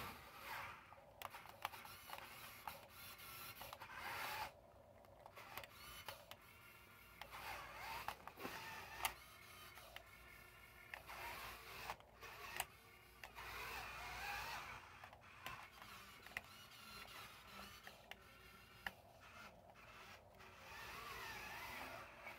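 A toy RC wheel loader's small electric drive motor and gearbox whining on and off, its pitch rising and falling as it drives and stops, with scattered clicks.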